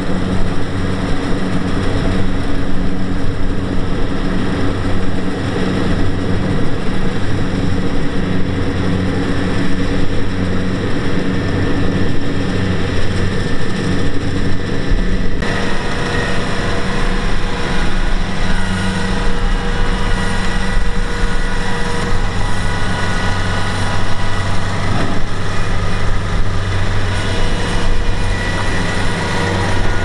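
Kubota DC-70Plus combine harvester's diesel engine running steadily and loudly as the machine works, with a steady engine hum under mechanical clatter and noise. The sound changes abruptly about halfway through, with more high-end machine noise in the second half.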